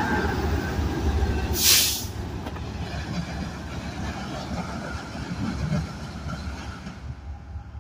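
A freight train's rear pair of GE ES44 diesel locomotives passes close by, with engine and wheel rumble that fades steadily as the train moves away. A brief sharp hiss comes about 1.7 s in.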